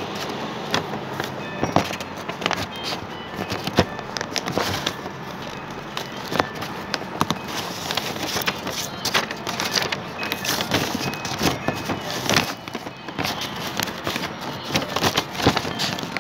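Sheet of paper being handled and folded, with irregular crinkles and crackles as it is creased.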